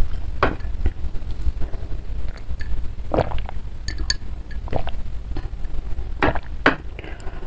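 Glass mug of water being handled: picked up, drunk from and set back down on the table. It gives a few scattered short clinks and knocks over a low steady hum.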